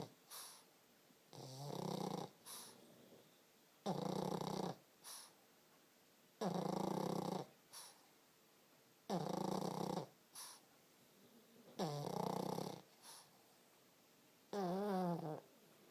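A sleeping pug snoring in a steady rhythm: a loud rasping snore about every two and a half seconds, each followed by a short, fainter puff. The last snore, near the end, carries a wavering pitched tone.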